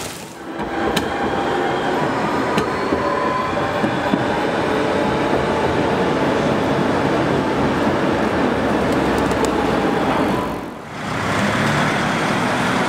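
Low-floor tram running past on street track, its wheels and running gear giving steady rolling noise with a faint whine and a few light clicks. About two-thirds of the way in, after a short dip, it gives way to general street traffic noise.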